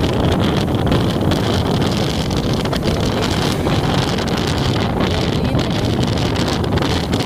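Steady wind rushing over the microphone from a moving vehicle, mixed with tyre and road noise on wet pavement, with frequent small crackles of buffeting.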